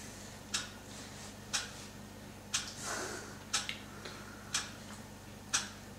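A clock ticking steadily, one sharp tick each second.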